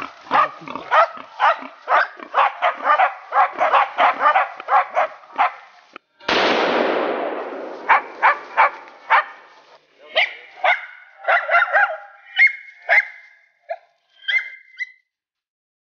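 Hunting dogs barking fast at a wild boar, several barks a second. About six seconds in a single loud bang cuts across and fades over a second or so. After it the barking goes on more sparsely, mixed with high-pitched yelps, and stops near the end.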